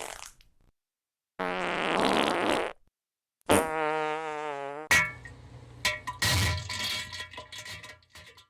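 Novelty fart noises at the end of a song: two buzzing blasts of about a second and a half each, the second wobbling in pitch, then a scatter of short pops and sputters.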